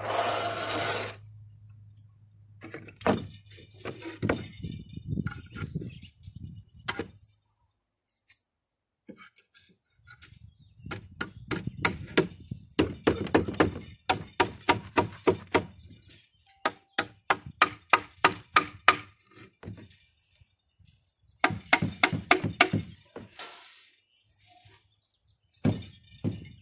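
Hammer blows on old particleboard cabinet panels while clearing out leftover nails. A few scattered knocks come first, then fast runs of about four or five blows a second through the middle, and a shorter run near the end.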